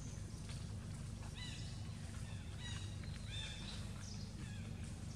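A series of short, high chirping animal calls, several in quick succession, over a steady low rumble.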